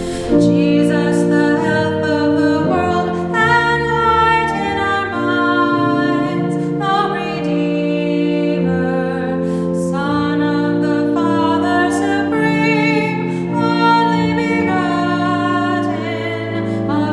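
Women's voices singing a hymn over sustained accompaniment chords that change from note to note.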